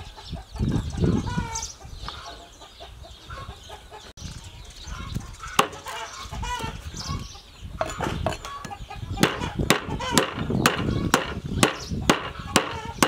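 Cleaver chopping lemongrass on a thick round wooden chopping block: a few single knocks, then a steady run of chops about twice a second from about nine seconds in. Chickens cluck in the background.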